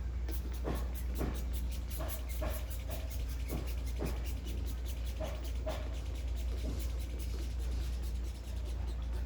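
Irregular clicks and light knocks, a few a second, over a steady low hum.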